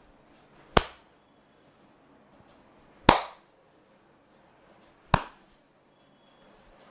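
Three sharp smacks of a hand, about two seconds apart, as percussive massage strokes; the middle one has a slightly longer tail.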